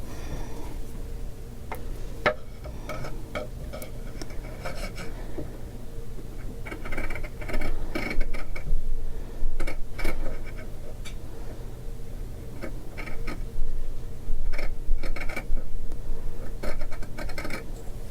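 Scissors cutting fabric in runs of quick snips and scrapes, trimming a curved edge, over a steady low room hum.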